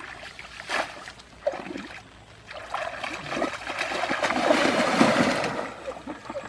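Shallow pond water splashing and sloshing as people wade through it and plunge a woven basket fish trap into it. The splashing swells about three seconds in, is loudest around five seconds, then eases off.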